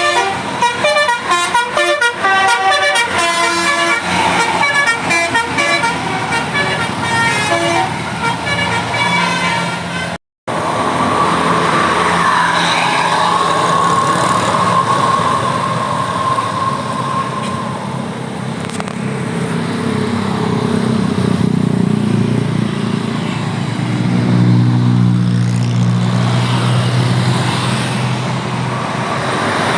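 Basuri multi-tone 'telolet' bus air horn playing a fast, stepped melody for about ten seconds. After a brief cut, bus engine and road noise take over, with a long held tone in the middle.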